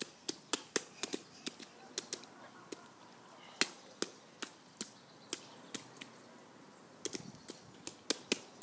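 Small rubber rain boots stepping and stomping in a shallow puddle on pavement: a string of short wet slaps and splashes, irregular, about two a second.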